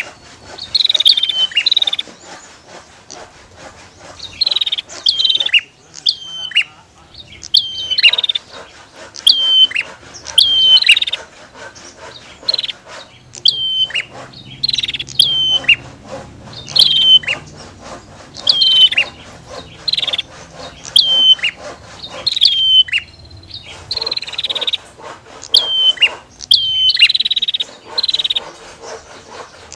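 Prinia (prenjak) calling over and over: short, sharp, high notes that drop in pitch, given in quick repeated phrases about every second or two.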